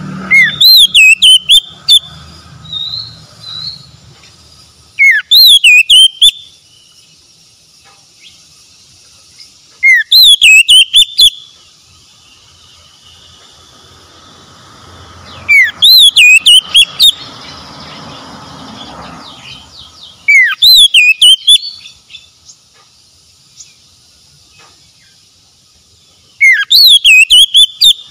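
Oriental magpie-robin singing: six loud, clear whistled phrases about five seconds apart, each opening with a rising whistle and breaking into quick warbling notes.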